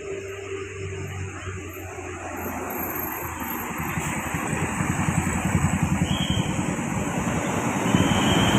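A bus's diesel engine approaching, its low rumble and road noise growing steadily louder.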